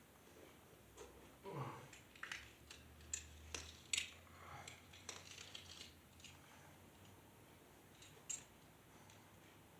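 Faint, scattered light clicks and clinks of metal hardware and hand tools being handled, most of them in the first half, with one more near the end.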